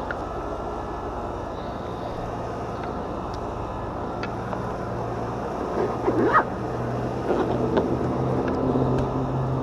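Steady low mechanical hum of an air conditioner's outdoor condensing unit running. About six seconds in there is a brief high squeal-like sound.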